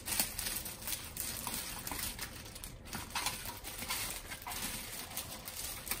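Thin plastic packaging bag crinkling and rustling in the hands as it is worked open, in irregular crackles.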